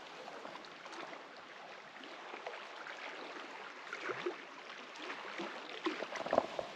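Steady outdoor background hiss, even and fairly quiet, with a few faint ticks and knocks.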